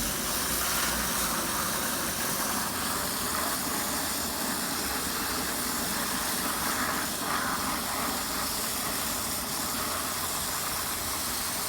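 Mains water escaping under full pressure from the open pipe end at a live water meter, a steady hiss.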